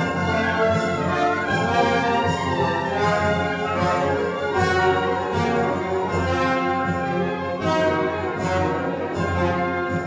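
Orchestral background music with brass, playing steadily.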